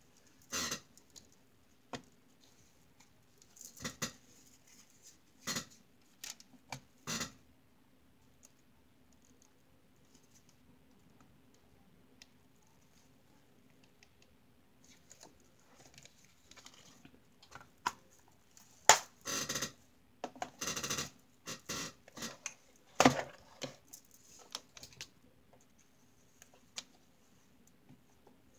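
Scattered clicks, taps and scrapes of small nail-art tools and plastic pieces handled on a tabletop, over a faint steady hum. They come in two busy stretches, near the start and past the middle, with a quieter stretch between.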